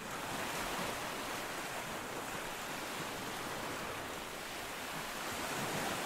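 Steady rushing wash of ocean surf, swelling a little near the end.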